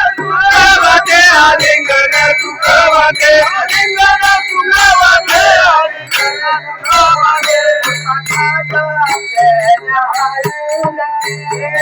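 Elderly woman singing a Marathi devotional bhajan in a strong, bending melodic line, over a rhythmic percussive beat.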